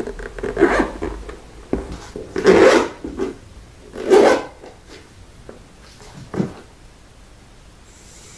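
Handling noise: a zippered soft carry case and a handheld gimbal being zipped, rubbed and moved about, in several short rustling and knocking bursts.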